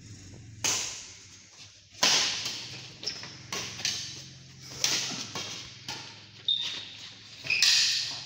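Badminton rally: about six sharp racket-on-shuttlecock smacks, roughly one every second or so, each ringing on in the hall's echo, with a couple of short high squeaks near the end.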